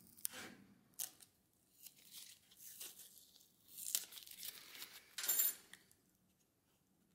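Blue masking tape being torn and handled in a series of short rips and crinkles as it is pressed over brake caliper pistons to mask them for painting; the loudest rip comes about five seconds in.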